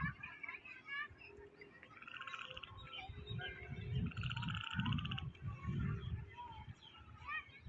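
Wind buffeting the microphone in low, gusty rumbles, with several birds chirping over it. A fast buzzy trill stands out twice, about two and four seconds in.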